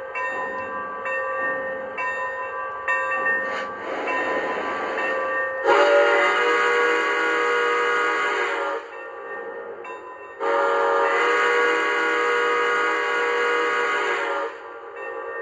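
Lionel model Santa Fe steam locomotive's onboard sound system sounding a steam whistle chord: two long blasts, the first about six seconds in and about three seconds long, the second a little over a second later and about four seconds long, with softer locomotive sounds before and between them.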